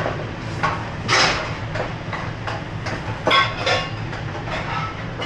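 Steady low hum of a commercial kitchen, with irregular clinks and scrapes of utensils against bowls and pans on top.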